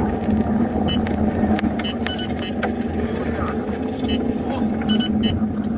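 Steady engine, road and wind noise heard from inside a car moving at highway speed, with scattered light clicks and a few brief high-pitched tones.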